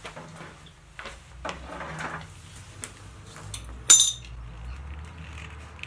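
A hose being worked onto a radiator's metal drain-off valve: light scrapes and knocks, with one sharp metallic clink about four seconds in.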